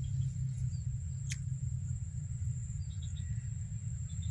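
Outdoor ambience: a steady high-pitched insect drone over a low rumble, with one sharp click about a second in and a few faint high chirps near the end.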